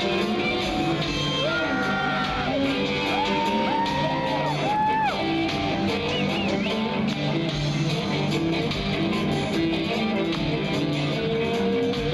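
A rock band playing live, with an electric guitar holding and bending notes over the band in the first half.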